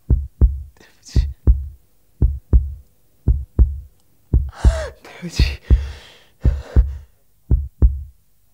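Heartbeat sound effect: deep paired lub-dub thumps in a steady rhythm, about one beat a second. A woman sobs briefly about halfway through.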